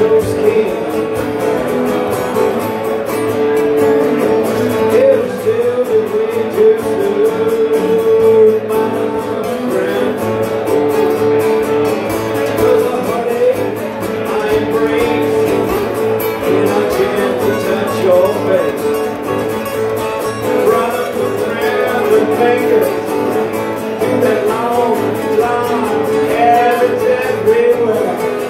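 Acoustic guitar played live, a country tune going steadily throughout.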